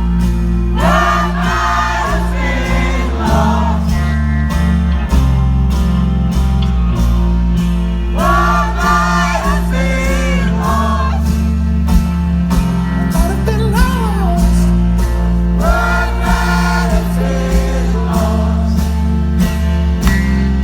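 Live band music: many voices singing a repeated refrain together like a choir, one phrase about every seven to eight seconds, over a sustained low bass drone and a steady drum beat.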